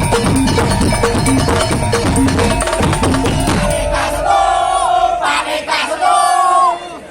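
Tong-tong percussion ensemble playing a driving beat with a repeating tuned note. About four seconds in, the drumming stops and the performers shout together in long group calls that fall in pitch.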